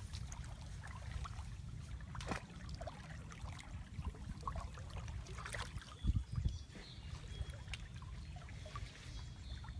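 Hands groping and splashing in shallow muddy ditch water, with small scattered splashes and two louder sloshes about six seconds in, over a steady low rumble.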